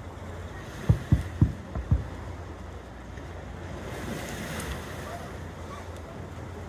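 Fireworks bursting at a distance: four dull booms in quick succession about one to two seconds in, then a steady rush of wind on the microphone.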